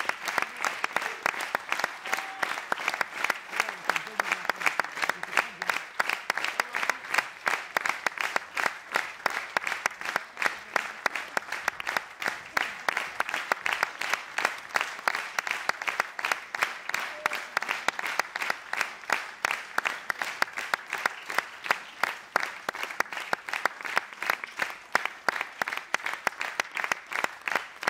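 Theatre audience applauding, the clapping falling into a steady rhythmic beat in unison.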